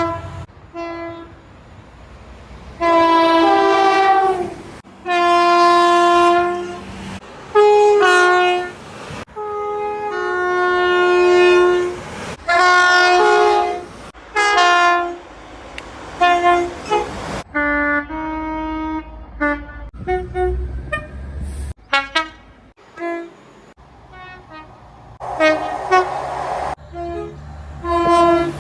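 Train horns sounding in a long string of separate blasts, each one to two seconds or so, many of them two-tone with the pitch stepping between a higher and a lower note. The clips cut abruptly from one horn to the next, with the low rumble of trains running underneath.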